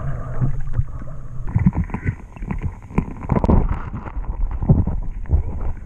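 Hands splashing and groping in shallow creek water with the camera dipping underwater: muffled sloshing and churning water, with irregular knocks as the stones on the gravel bed are moved.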